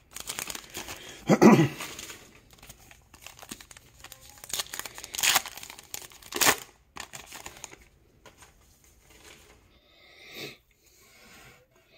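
Trading-card pack wrapper being torn open and crinkled, with cards handled and set down: irregular rustles and sharp crackles, loudest about a second and a half in and again around five to six and a half seconds in.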